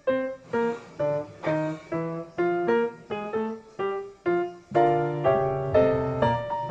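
Background piano music: single notes at an even, unhurried pace, filling out into fuller chords near the end.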